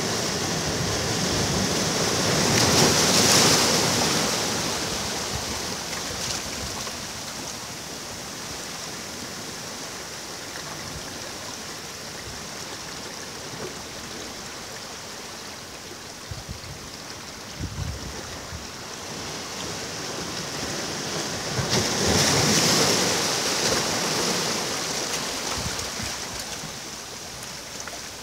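Ocean waves breaking on a beach, the surf washing steadily with two waves swelling and crashing, about three seconds in and again about 22 seconds in, then draining away.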